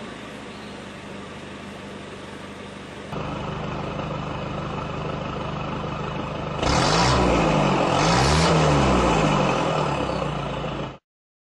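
A 2005 Ford Ranger's 2.5-litre four-cylinder turbo diesel idles through an exhaust with the centre silencer removed, practically a straight pipe. It is revved twice, each rev rising and falling in pitch, then settles back to idle before the sound cuts off abruptly near the end.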